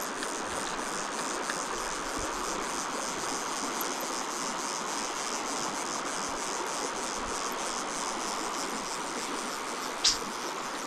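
Steady rush of flowing stream water, with insects chirping in rapid repeating pulses. One brief sharp high sound about ten seconds in.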